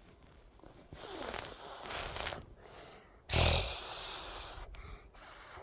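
Air rushing across the microphone in two long, loud puffs, each about a second and a half, with a shorter, fainter one near the end; the second has a deep rumble.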